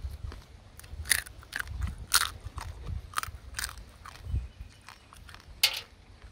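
A person biting and chewing cooked crab close to the microphone: a string of sharp cracks and crunches as the shell breaks between the teeth, the sharpest one near the end.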